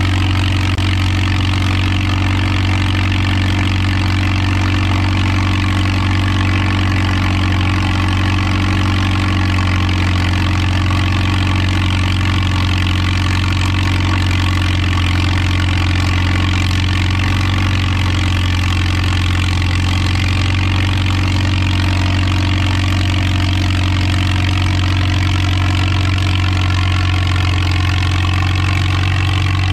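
Farmall M tractor's four-cylinder engine running steadily under heavy load as it drags a weight-transfer pulling sled, with a deep, even drone that neither bogs down nor dies.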